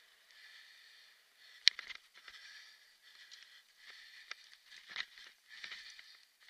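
Kick scooter rolling fast over a bumpy forest dirt trail, heard from a camera riding along: a rushing noise that swells and fades about once a second, with sharp jolting knocks, the loudest about a second and a half in and another about five seconds in.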